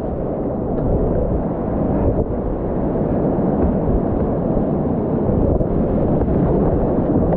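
Whitewater rapids rushing close around a kayak as a steady, loud wash of water noise that grows a little louder over the first couple of seconds.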